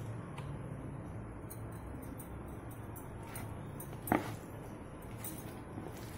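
A hand mixing masala-marinated anchovies with cornflour in a plastic bowl: soft, wet handling sounds, with one sharper tap about four seconds in.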